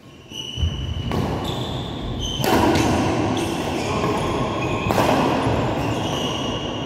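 A badminton rally in a large indoor hall: sharp racket strikes on the shuttlecock, about a second, two and a half and five seconds in, amid short high squeaks of court shoes on the floor and the scuffle of footwork.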